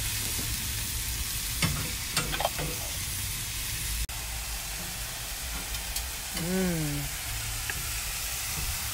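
Sliced mushrooms and jalapeños sizzling steadily on a griddle over gas burners, with a few clicks and scrapes from metal tongs and a fork as they are turned, early in the sound.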